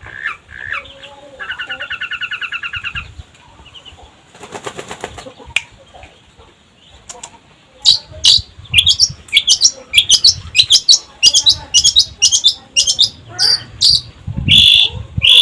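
Long-tailed shrike (cendet) singing: a quick trill at first, a short harsh rattle a few seconds in, then about halfway through a run of loud, sharp, high calls, two or three a second.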